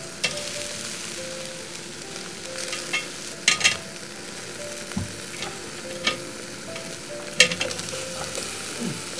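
Marinated beef and red razor clams sizzling on a wire-mesh grill over hot charcoal: a steady hiss with a few sharp crackles now and then.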